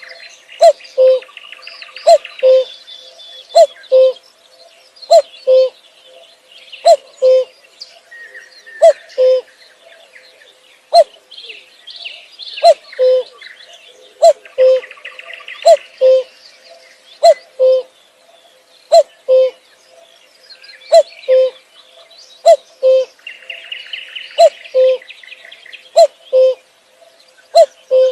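Common cuckoo calling its two-note, falling 'cu-ckoo' over and over, about one call every second and a half. Smaller birds chirp and twitter higher up behind it.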